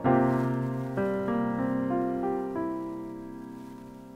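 Background piano music: a chord struck at the start, then a short run of single notes that ring on and fade away.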